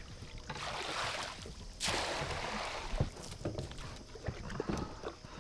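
Water swishing around a small plastic boat: two swishes about a second apart, the second louder, with light knocks on the hull.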